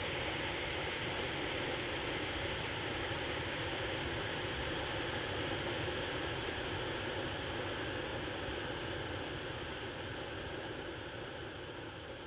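Many silver lance lights (lancework) burning together with a steady hiss, growing slowly quieter over the last few seconds.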